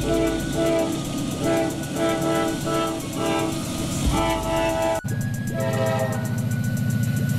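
CSX AC44CW's Nathan K5LA horn sounding a chord in a series of short and longer blasts as the locomotive approaches. After an abrupt cut, a diesel locomotive's engine drones heavily under load, with a short horn blast.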